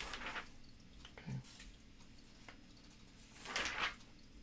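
Catalogue pages being turned by hand: two short papery rustles, one at the start and a louder one about three and a half seconds in.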